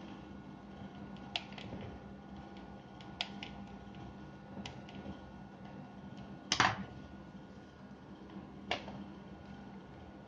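Scattered small clicks and taps of a screwdriver working a screw in a power drill's plastic housing, with one louder, brief clatter about two-thirds of the way through.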